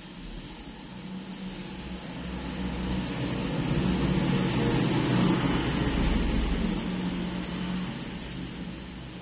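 A vehicle's engine passing by: a low rumble that grows louder over a few seconds, holds, then fades away near the end.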